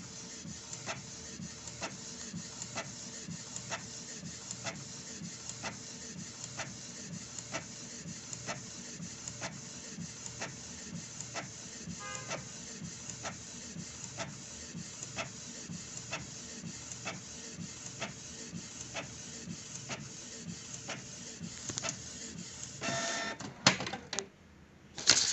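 Canon PIXMA G3411 inkjet printer printing a page: a steady mechanical whir with a regular tick about every half second, and a louder clatter near the end.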